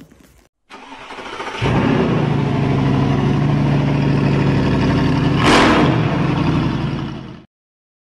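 Car engine sound effect: an engine starting and then running steadily, with a brief louder swell about five and a half seconds in, fading out near the end.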